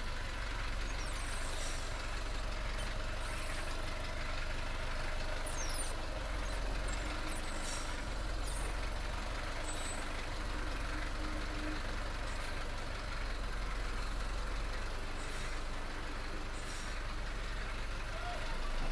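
TATA Ultra 15.18 truck's diesel engine running steadily at low speed, heard from inside the cab as the truck is slowly manoeuvred into a parking spot, with a few short faint hisses.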